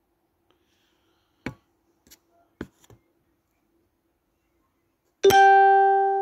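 A few light clicks, then a single loud plucked-string note about five seconds in, ringing with clear overtones and fading away over about a second and a half.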